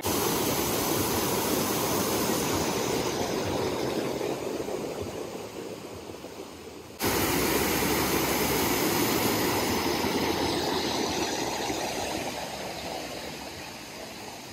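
Fountain jets spraying and splashing into a pool, a steady rush of water. The sound breaks off suddenly about halfway, comes straight back just as loud, and then fades toward the end.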